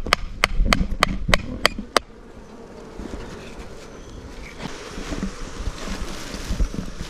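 Sharp, regular knocks about three a second that stop about two seconds in, followed by the buzzing of a mass of honeybees, which grows louder toward the end.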